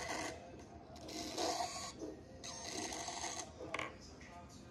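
Small electric motors in a 3D-printed prosthetic hand (Mand.ro Hand Mark 7) driving its fingers, in several bursts of about a second each as the hand closes and opens, with a shorter burst near the end.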